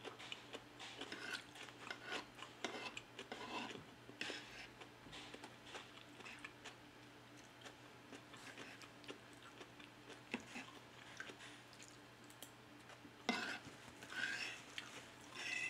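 Close-miked eating sounds: chewing, with scattered small clicks and taps of a metal fork against a wooden plate. A few louder sounds come near the end.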